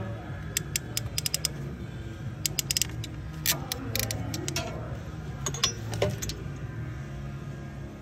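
A hand crimping tool clicks as it squeezes blue butt-splice connectors onto Duramax fuel-injector harness wires. The clicks come in several quick runs over a low steady hum.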